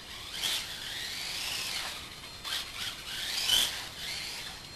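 Electric four-wheel-drive RC buggy with a 13.5 brushless motor driving and turning on a bare concrete floor. Its motor whine rises and falls in pitch with the throttle, over the hiss of the tyres on the concrete.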